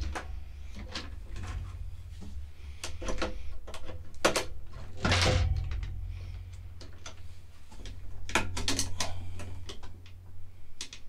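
Hands working wires and plug-in connectors loose inside a solar inverter's sheet-metal chassis: a string of irregular clicks and knocks, a longer scrape about five seconds in and a run of clicks around eight to nine seconds, over a steady low hum.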